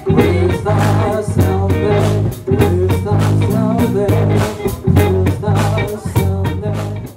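Live band playing: drum kit with a steady beat, guitar and a sustained low bass line, with voices singing over it. The music fades down near the end.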